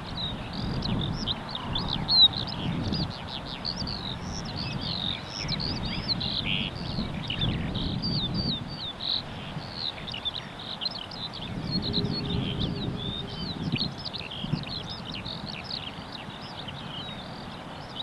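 Songbirds singing without pause, a dense run of high chirps and trills, over the low scuffing thuds of footsteps on a sandy path.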